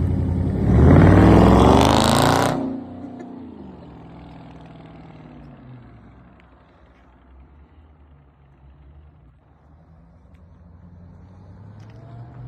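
Dodge Hemi V8 revved hard, its pitch rising for about two seconds, then dropping back to a steady idle.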